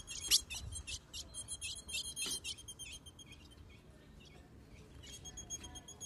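Female ultramarine grosbeak (azulão) giving a rapid series of high, thin chip calls, about four or five a second, soliciting mating. The calls fade about halfway through and pick up again near the end, with one louder note just after the start.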